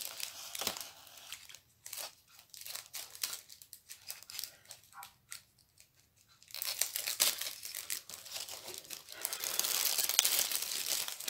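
Clear plastic bag crinkling and crackling as it is worked open: sparse crackles at first, then dense, continuous crinkling from about halfway in.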